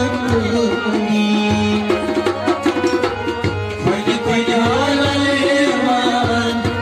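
Harmonium playing sustained reed notes with a hand drum beating a quick, steady rhythm.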